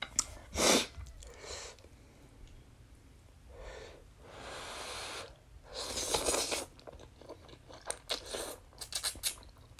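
Close-miked eating of spicy noodles: two breathy rushes of air a few seconds in, then wet chewing with a quick run of small clicks and smacks near the end.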